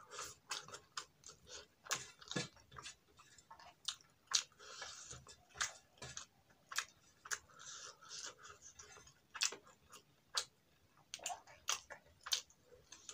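Rice being eaten by hand: mouth-close chewing with sharp wet smacks and clicks at irregular intervals, and fingers mixing rice on a steel plate with a couple of brief rustling scrapes.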